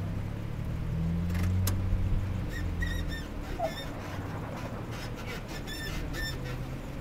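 Engine of a Nissan Nismo pickup truck pulling up a steep rock slope: a low drone that swells about a second in, then fades as the truck moves away. Over the middle comes a run of short, high, repeated chirps.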